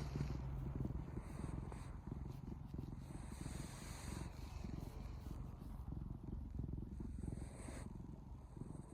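Domestic cat snoring: a low, continuous rattling rumble of rapid fine pulses.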